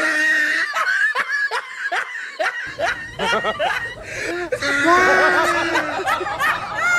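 A person laughing hard in a run of short, high-pitched bursts, with a longer drawn-out laugh about five seconds in; it cuts off abruptly at the end.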